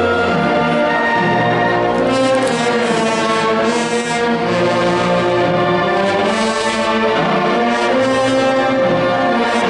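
Brass band playing a slow funeral march, with trombones and other brass holding long notes in harmony.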